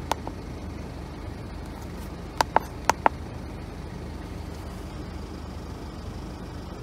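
Short electronic beeps from a Foxwell handheld OBD scan tool: one right at the start, then two quick pairs about two and a half seconds in, over a steady low hum.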